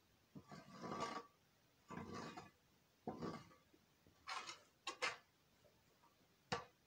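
A shovel scraping and scooping donkey manure off the stall floor, in a series of short strokes about once a second, six in all.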